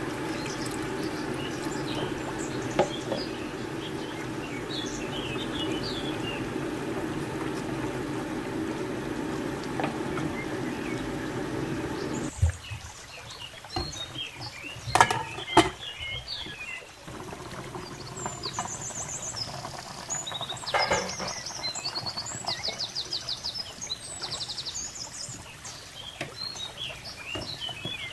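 Water poured in a steady stream from a plastic jug into a metal pot of curry for about twelve seconds, stopping abruptly. A few sharp knocks follow as a wooden spoon stirs against the pot, then softer bubbling as the liquid heats, with birds chirping in the background.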